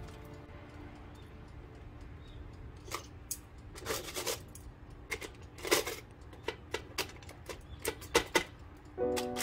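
Metal kitchen tongs clicking and scraping against squid, aluminium foil and the cooker pot as the squid are turned and rearranged. It is a scatter of sharp clicks with a couple of short scrapes, starting about three seconds in.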